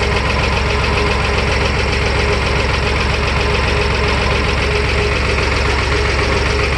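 Vintage Fendt Farmer 2 DE tractor's diesel engine running steadily with an even chug, heard from the driver's seat.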